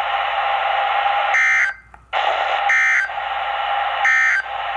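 Three short bursts of Emergency Alert System SAME digital data tones, about 1.3 seconds apart, over a steady radio hiss. Short bursts like these are the end-of-message code that closes an EAS alert.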